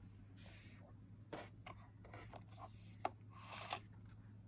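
Faint handling sounds of a Cricut Joy's cutting mat being taken from the machine: light scrapes and rubs with a few soft clicks, the sharpest click about three seconds in, followed by a short scrape.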